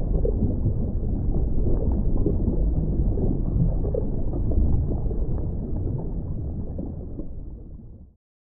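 A low, muffled rumble with no clear pitch, tapering off in the last few seconds and stopping just before the end.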